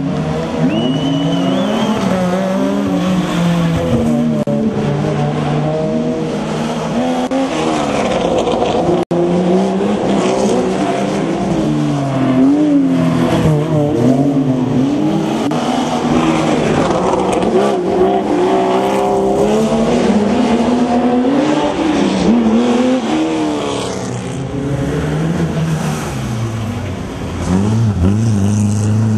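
Rally car engines revving hard and dropping back again and again through gear changes as the cars are driven around a tight street circuit. Near the end a deeper, louder engine note comes in.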